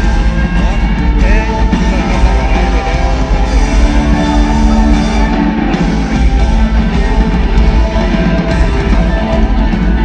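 Rock band playing loud and live, with electric guitars, bass, drums and singing, heard from the stands of an arena.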